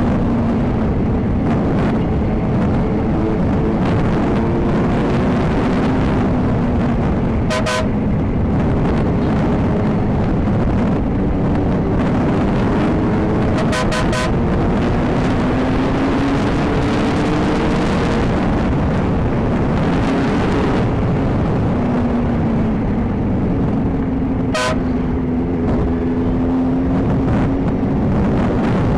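Motorcycle engine running on the road, its pitch slowly rising and falling with the throttle over a heavy wind rumble on the microphone. Three short sharp clicks come through, about a third of the way in, near halfway and near the end.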